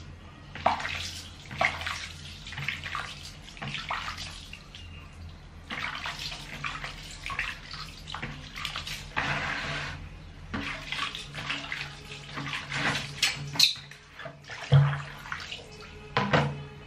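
Hand splashing and swishing soapy water in a plastic wash basin, in irregular splashes.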